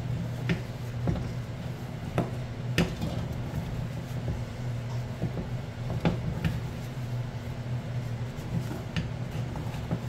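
A spatula knocking and scraping against a small metal saucepan as thick fufu dough is mashed and turned in it, with irregular knocks about a second apart, over a steady low hum.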